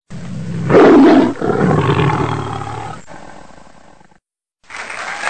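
Tiger roar sound effect: a loud roar about a second in, then a second, longer roar that fades away and cuts off after about four seconds.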